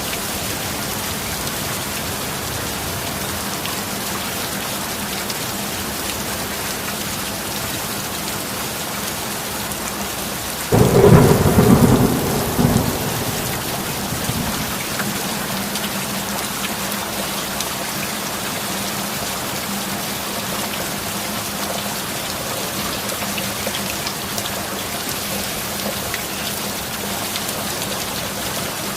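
Steady heavy rain with a thunderclap about eleven seconds in: a sudden loud crack that rolls on for a couple of seconds and fades to a rumble under the rain. A faint steady low tone runs underneath, the binaural beat mixed into the track.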